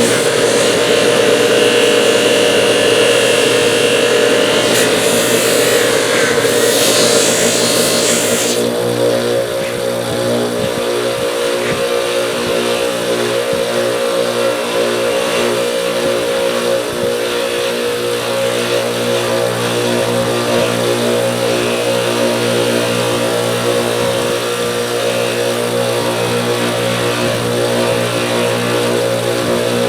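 Electric motor of a wheel tool running steadily, with a higher grinding hiss over it for about the first eight seconds that then stops while the motor keeps running.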